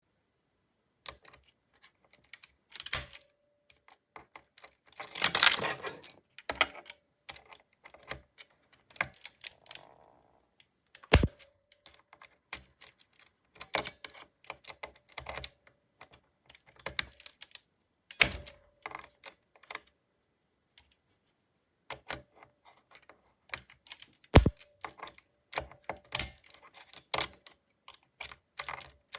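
Cherry MX mechanical keyboard switches clicking as keys are pressed and released, in irregular clusters, with a quick flurry of presses about five seconds in and a few sharper single clicks.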